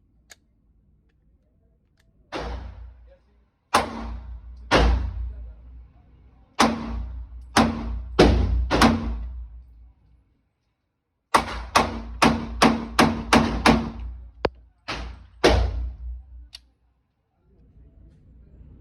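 Gunfire from a semi-automatic firearm: about seven single shots roughly a second apart, then a quick string of about nine shots at three to four a second, then three more spaced shots.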